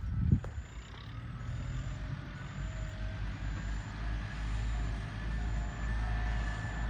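A heavy engine running steadily with a low rumble, and one sharp knock about a third of a second in.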